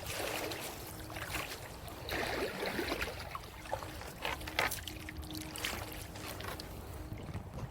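Water trickling and splashing around a kayak and its paddle being worked through shallow water, with a few light knocks.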